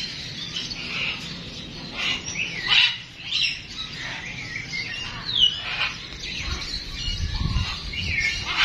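Birds chirping and calling over one another, many short falling calls overlapping, with a couple of louder calls about three and five and a half seconds in.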